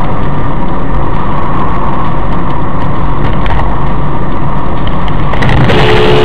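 Loud, steady rumble and road noise of a car driving, picked up by a dash camera. Near the end a brief steady tone sounds for about a second.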